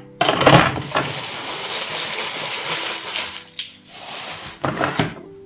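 Kitchen handling noise while coating raw chicken in flour and cornstarch: a loud rustling hiss of about four seconds with clinks of dishes, then a shorter burst near the end.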